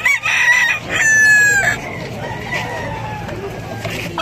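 Gamecocks crowing. The loudest is one long, slightly falling crow about a second in, with shorter calls from other cocks around it.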